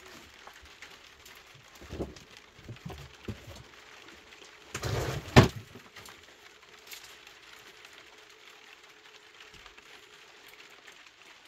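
Rain falling steadily, with scattered light knocks and a louder clatter about five seconds in that ends in a sharp crack.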